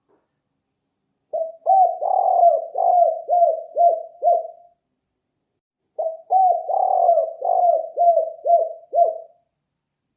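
Spotted dove cooing, two song phrases. Each opens with a few rolling coos and ends in four short, falling 'kuk' notes: the 'kuk 4' song type of this dove.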